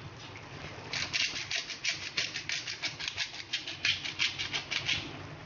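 Pepper grinder being twisted over a simmering pot, giving a quick run of dry rasping clicks, about six a second, for roughly four seconds.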